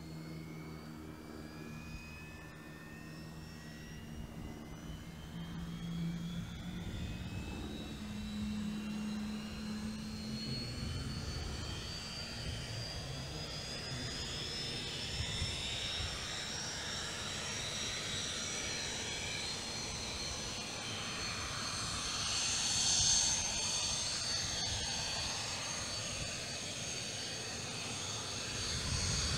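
Soko G-2 Galeb's Rolls-Royce Viper turbojet spooling up on engine start, a whine that climbs slowly and steadily in pitch as it gets louder. A low steady hum underneath fades out about ten seconds in.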